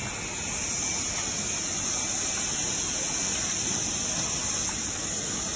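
Steady rushing hiss of running factory machinery, with no rhythm or distinct strokes, and one sharp click at the very end.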